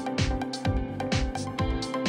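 Background music with a steady drum beat, about two kick-drum hits a second, over sustained held tones.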